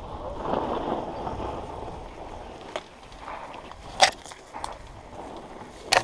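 Downhill mountain bike rolling down a loose dirt singletrack, its tyres crunching over dirt and small stones, loudest in the first couple of seconds. Sharp clacks from the bike cut through about four seconds in and again near the end.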